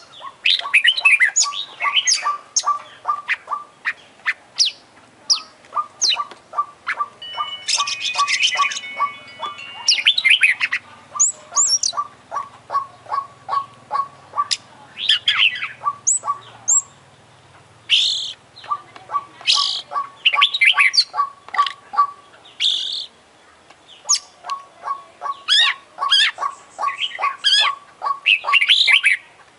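Oriental magpie-robin (kacer) in full, vigorous song, packed with mimicked phrases: a fast, varied stream of whistles, slides and harsh notes, broken again and again by runs of quick low ticks, about ten a second.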